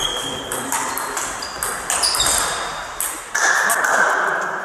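Table tennis rally: the ball clicking off bats and the table in quick succession, each knock with a short ringing ping. A louder hiss lasting about a second comes near the end.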